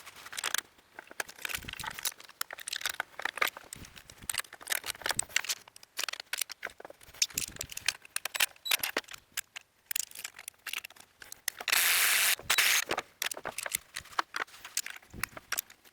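Irregular metal clicks and rattles of hand tools working the chain-tension hardware on sawmill log stops, with one louder burst of noise lasting about a second near twelve seconds in.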